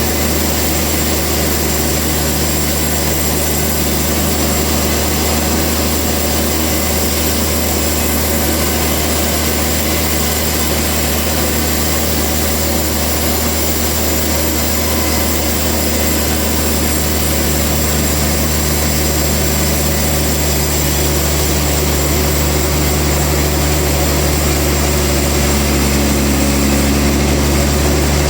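Sawmill machinery running with a steady low hum. A slightly higher tone joins in near the end.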